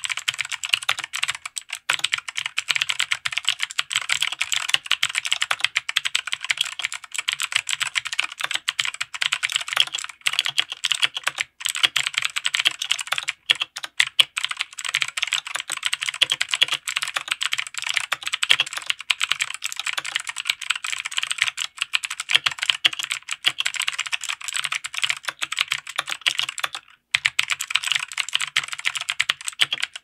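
Fast, continuous typing on a TMKB T63 mechanical keyboard with TMKB Blue clicky switches, similar to Gateron Blues, under ABS keycaps on an aluminum plate in a plastic case. It makes a dense clatter of sharp clicks with a few short breaks.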